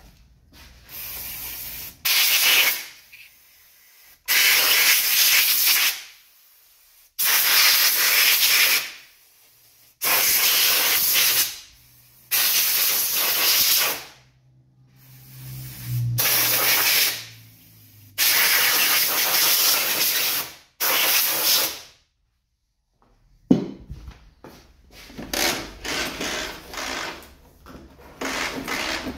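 Compressed-air blow gun firing in about eight loud hissing bursts of one to two seconds each, with short pauses between them. A sharp click and some light irregular clattering follow near the end.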